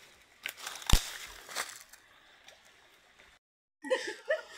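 Water splashing and the plastic mosquito net crackling as it is hauled through a shallow stream, with a sharp knock about a second in as the loudest sound. After a sudden cut near the end, women's voices.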